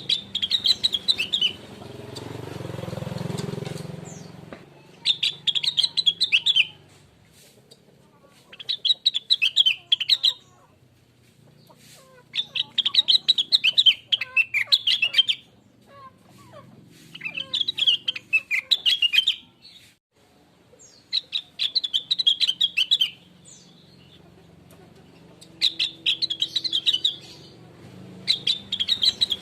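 Rengganis (cucak wilis) bird singing in short bursts of rapid, high chirping notes, one burst every few seconds, about eight in all. A low rumble swells and fades a few seconds in.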